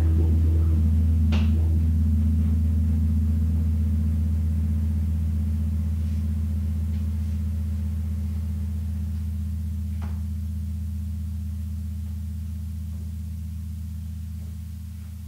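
The last low note of a heavy riff piece, held and ringing out, fading away slowly and evenly over about fifteen seconds, with a faint click about a second in and another about ten seconds in.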